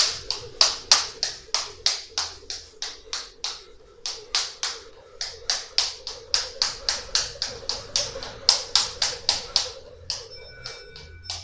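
Jump rope slapping a laminate floor in a steady rhythm of about three to four strikes a second during alternating-foot speed steps, stopping about ten seconds in.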